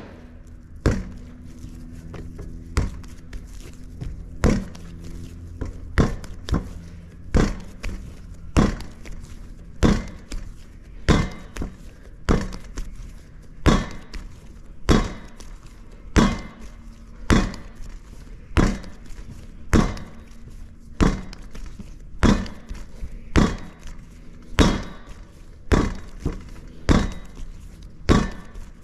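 A ball of pizza dough slapped down on a work surface again and again in a steady rhythm, a dull slap about every two-thirds of a second.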